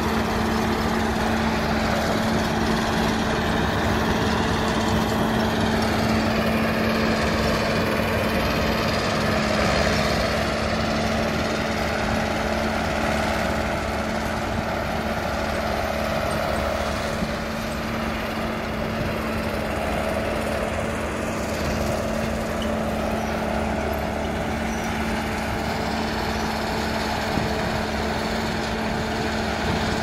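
John Deere W50 combine harvester running steadily as it cuts and threshes khapli (emmer) wheat: a constant low diesel engine hum under a broad machine noise that wavers slowly.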